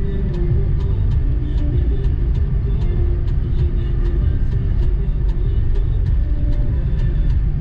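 Steady low rumble of a car's engine and road noise, as heard by its own dash camera while driving, with a faint high tick repeating about four times a second.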